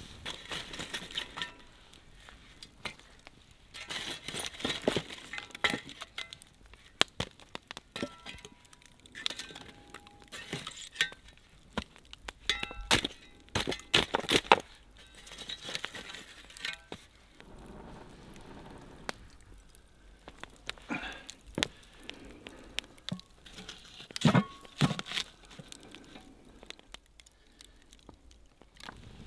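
Wood fire crackling and popping, with sharp irregular cracks throughout and a few louder knocks, the loudest about fourteen and twenty-four seconds in.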